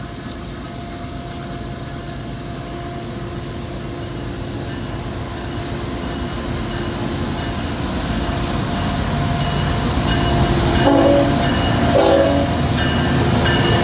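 Diesel freight train approaching and growing steadily louder, its locomotive air horn sounding, with two short, louder horn blasts near the end.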